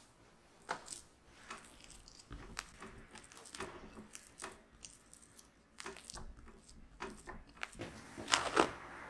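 Silicone spatula pressing and smearing softened butter around a glass mixing bowl: irregular soft scrapes and squishes with small knocks, the loudest strokes near the end. Under it the table knocks and rattles with each stroke.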